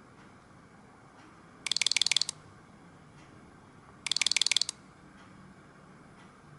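A Nokia Asha 302 stock ringtone made of rapid ratchet-like clicking: two short bursts of quick, even clicks, each about half a second long and about two and a half seconds apart.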